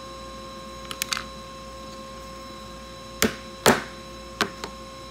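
Small hammer tapping: two sharp knocks a little under half a second apart, then two lighter taps. Faint clicks of small metal parts being handled come about a second in.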